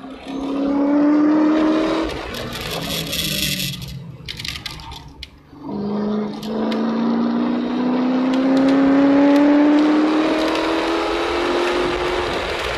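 Corvette C6 Z06's 7.0-litre V8 under hard throttle, heard from inside the car: the engine note climbs for about two seconds, gives way to a hiss of noise and a lull as the car slows, then climbs steadily again in one long pull from about six seconds in to near the end.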